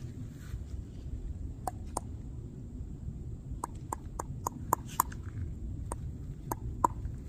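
Dry twigs and leaf litter snapping underfoot: a scatter of sharp clicks, mostly bunched in the middle, over a steady low rumble.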